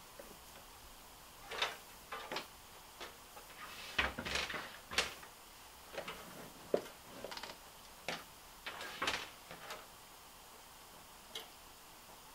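Scattered clicks, taps and rustles of small plastic connectors and cables being handled as a water-cooling pump's lead is plugged into a PWM splitter cable, with a busier patch of handling about four to five seconds in.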